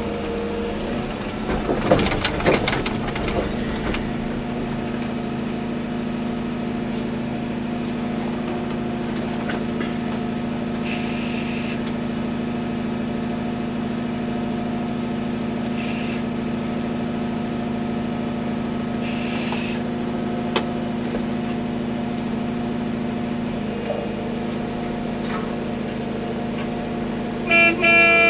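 Volvo EC240B excavator's diesel engine running steadily at working speed, with a burst of clattering about two seconds in and a short horn blast near the end.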